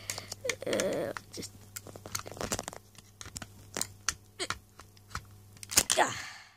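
Hard plastic Lego bricks clicking and scraping as the roof of a Lego model car is worked and pried off, with scattered sharp clicks and a loud burst of clatter and handling noise near the end.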